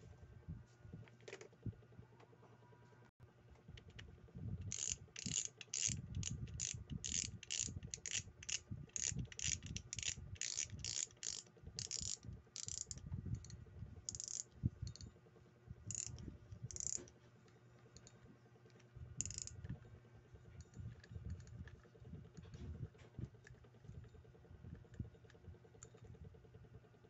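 Daiwa World Spin 4000 spinning reel's mechanism worked by hand: a run of sharp, evenly spaced ratchet-like clicks, about two or three a second, thinning out to scattered clicks, with low handling knocks of the reel against hands and bench.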